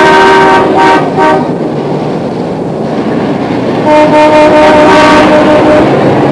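Loud horn-like held tones over a constant noisy wash: a short chord in the first second, then a longer single held note from about four seconds in.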